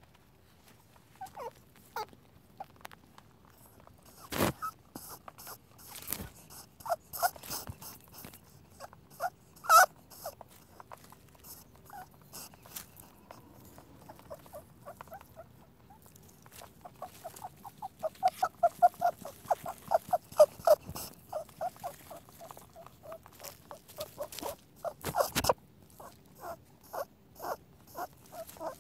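Rabbit squeaking: many short, high squeaks, sometimes single and sometimes in quick runs of several a second, with the longest fast run a little past the middle. A few sharp clicks stand out among them.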